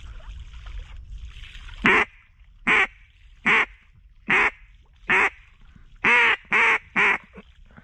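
A mallard duck call blown by a hunter to draw in ducks: a series of about eight loud quacks, starting about two seconds in, slow and evenly spaced, the last three coming quicker.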